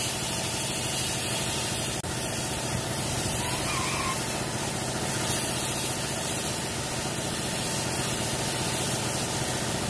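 Gravity-feed spray gun hissing steadily as the colour coat is sprayed onto a car bumper in a touch-up, over a steady machine hum.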